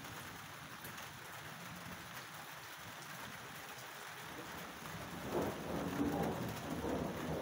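Steady rain falling, with a rolling rumble of thunder building up about five seconds in.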